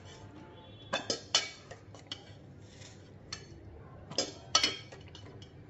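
Metal spoon knocking and clinking against a metal pot while boiled raw banana pieces are scooped out of the turmeric water. Scattered sharp clinks, the loudest about a second in and again around four seconds in.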